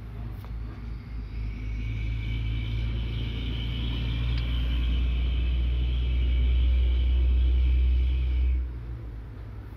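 A running engine gives a low steady rumble with a faint high whine above it. It grows louder over several seconds, then drops off sharply about eight and a half seconds in.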